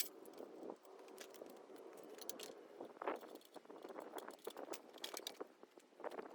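Faint, scattered metallic clicks and clinks of hand tools and small parts being handled while a moped is taken apart, with a slightly busier cluster about three seconds in.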